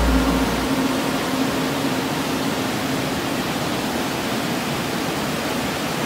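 Steady rushing of water from a waterfall cascading over rocks into a pool. The tail of background music fades out under it in the first half.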